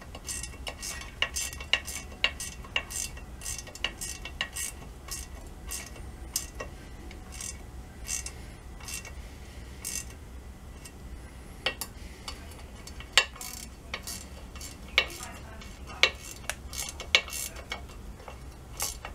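Light metallic clicks and clinks, irregular, a few a second, with several sharper clicks in the second half: small steel quarter-20 nuts being handled and fitted by hand onto broken bolt stubs.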